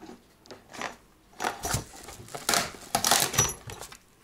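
Metal clock-repair hand tools clattering and clinking in a plastic box as they are rummaged through for the let-down tool: a handful of sharp rattles over about two seconds, with a brief bright metallic ring near the end.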